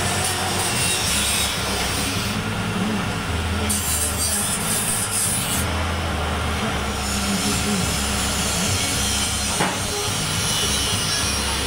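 Rotary dryer running on test: the steel drum turning on its frame, driven by an electric motor, with a steady mechanical noise over a low hum and a single knock near the end.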